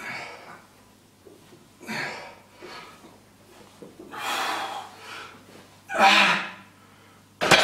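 Hard, forceful exhalations through the mouth, a short burst of breath with each rep of a close-grip barbell bench press, getting louder as the set goes on. Near the end a sudden sharp clank, as the loaded barbell is set back onto the rack.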